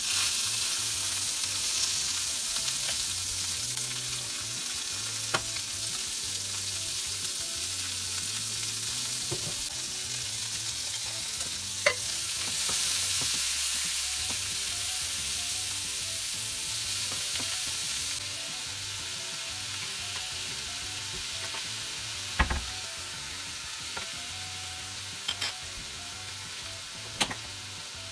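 Shredded cabbage, bean sprouts and pork sizzling in a hot frying pan as they are stir-fried. The sizzle jumps up as the vegetables go into the pan at the start, with a few sharp clicks along the way.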